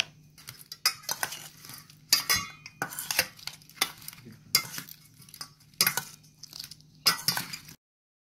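A metal spoon clinking and scraping against a stainless steel bowl while raw prawns are stirred with scallop powder: about eight irregular knocks with scraping between them, cutting off suddenly near the end.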